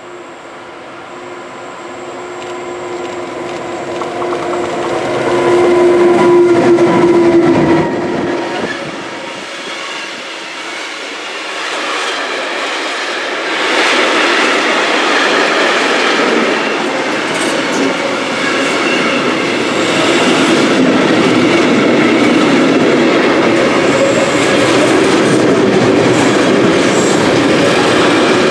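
Electric locomotive hauling a container freight train, approaching and then passing close by. A steady tone is loudest as the locomotive goes past, about six to eight seconds in, then the container wagons roll by with a steady wheel rumble and clickety-clack.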